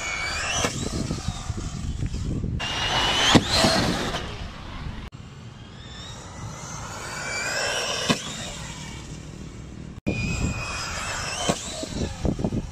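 Arrma Typhon TLR RC buggy's brushless electric motor whining, rising and falling in pitch as it speeds up and slows across several runs, over tyre noise on the rough surface. A few sharp knocks are heard along the way.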